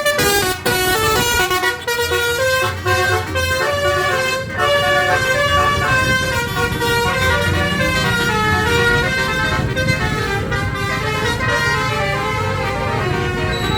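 Bus basuri (telolet) multi-tone air horn playing a tune of quickly changing notes, with the bus engine running underneath.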